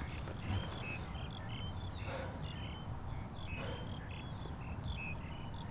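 Forest ambience of small birds chirping: many quick, high notes at varying pitches, some sliding downward, over a steady low rumble. A couple of soft rustles come about two and three and a half seconds in.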